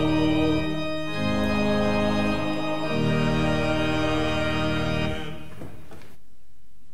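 Church organ playing sustained chords that change twice, the last chord cut off about five seconds in and dying away in the room's echo, like the close of a hymn.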